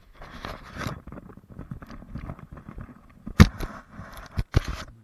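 Close handling noise on an action camera being repositioned: irregular rustling, scraping and clicks, with two sharp knocks about three and a half and four and a half seconds in.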